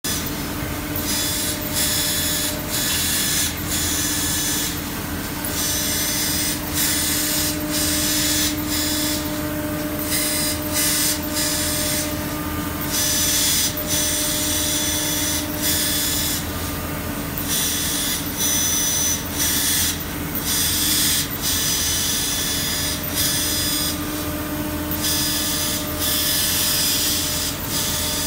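Laser cutter at work on a wood panel: the cutting head's drive motors whine and hiss in shifting pitches as it traces curves, falling quiet for a moment at many short pauses, over a steady low hum.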